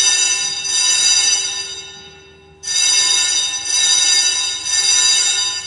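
Fire alarm sounding, set off from a pulled pull station. A loud, steady ringing tone with many overtones fades away, cuts back in abruptly about two and a half seconds in, and fades again near the end. It is so loud.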